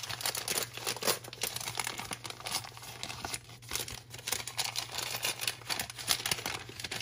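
Paper gift wrapping and packaging being handled and unwrapped: continuous crinkling and rustling with many small sharp crackles.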